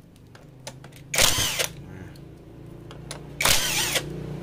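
Power tool with an 8 mm socket on a long extension spinning in two short bursts, about half a second each, undoing bolts on a Honda Supra Fit engine. A steady low hum runs underneath.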